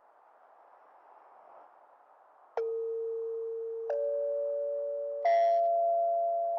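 Electronic chime notes of an emergency alert signal. After about two and a half seconds of faint hiss, three notes strike about 1.3 seconds apart, each higher than the last, and ring on together into a held chord; the third note is the brightest.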